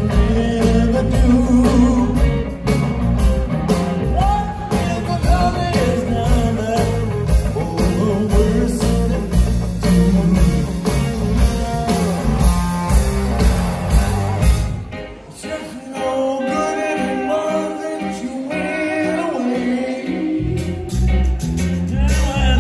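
Live rock band playing, with electric guitars, keyboards, drums and singing. About fifteen seconds in the drums and bass drop away for a sparser passage of guitar and voice, and the full band comes back near the end.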